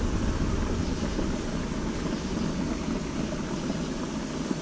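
Steady rushing noise of flowing creek water, an even hiss with a low rumble underneath.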